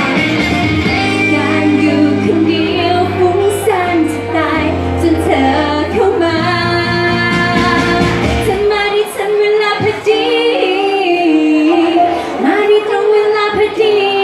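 A woman sings a pop song live into a handheld microphone over backing music played through the PA. The bass in the accompaniment drops out about nine seconds in, leaving the voice over lighter backing.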